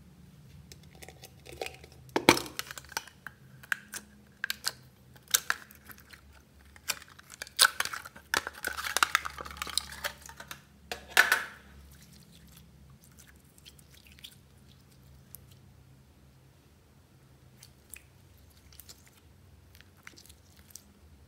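Clear slime squeezed and stretched by hand, giving a run of sticky clicks and pops. Several loud pops come in the first half, then fainter, sparser crackling.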